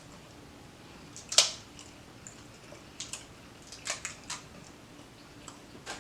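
Eating sounds: a few short, sharp clicks and crackles from handling and chewing food. The loudest comes about a second and a half in, with a few more around three and four seconds.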